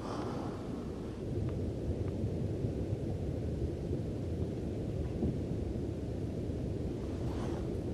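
Mount Etna's volcanic rumbling: a steady, low, thunder-like rumble.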